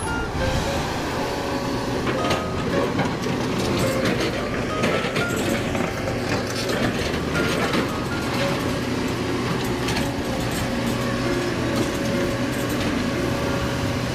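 Kobelco SK210 HD excavator's diesel engine running steadily under digging load, with scattered knocks and scraping as the bucket works through earth and stones.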